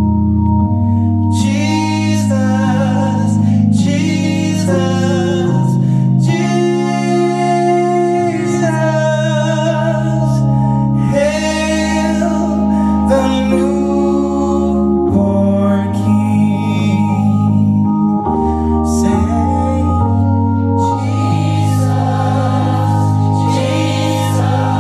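Two male voices singing a gospel-style Christmas carol with vibrato over long, held organ chords.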